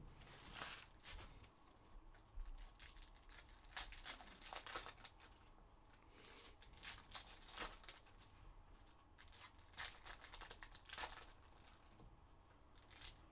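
Faint, intermittent crinkling and rustling of foil trading-card pack wrappers and cards being handled, in short scattered bursts.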